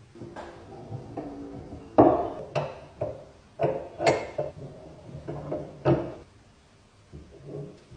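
A series of irregular knocks and clinks of hard parts being handled and set down, some ringing briefly, the loudest about two seconds in.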